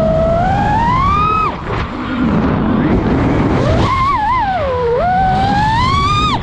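FPV freestyle quadcopter's brushless motors whining, the pitch climbing with throttle and cutting off sharply about a second and a half in, then rising again with quick wobbles and a dip before climbing and cutting off near the end. A steady rushing noise runs underneath.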